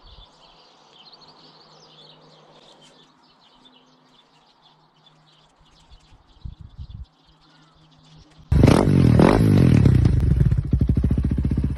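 Birds chirping faintly over a low steady hum, a few short knocks, then about eight and a half seconds in a loud motorcycle engine starts up and revs, its pitch rising and falling.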